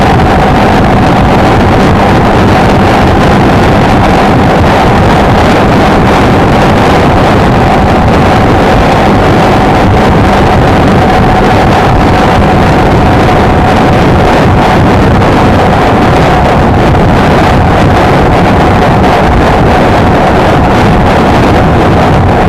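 Honda XLR125R single-cylinder motorcycle running at a steady cruise, with heavy wind noise on the microphone and a steady high tone throughout.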